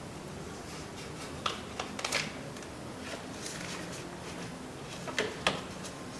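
Plastic clicks and light handling noise from a replacement interior door handle and its rod clips being worked by hand. There are a few sharp clicks about a second and a half to two seconds in, and two more past the five-second mark.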